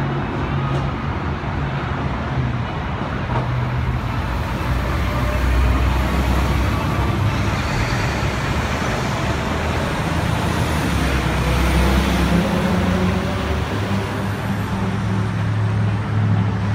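Steady city traffic noise with road vehicle engines running, as an electric light rail train pulls away from the platform down the line.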